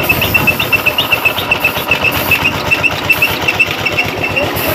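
A motor running steadily with a rapid, even pulsing beat and a regularly repeating high tick, while a high hiss cuts in and out several times.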